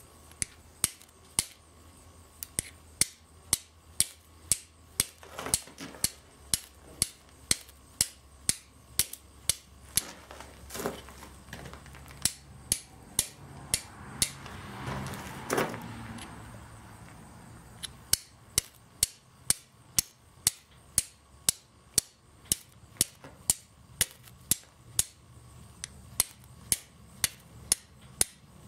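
A hand-forged steel striker, made from an old file, struck repeatedly against a piece of flint: sharp clicks about twice a second, with a pause of several seconds midway.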